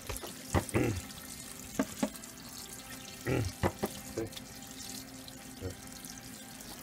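Kitchen faucet running cold water onto cooked egg noodles in a plastic colander in a stainless steel sink, rinsing them to stop the cooking. A few sharp knocks come through the steady water noise.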